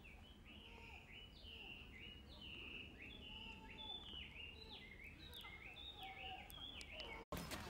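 A small songbird singing faintly, a quick run of short whistled notes rising and falling in pitch, about three a second. The sound cuts off suddenly near the end.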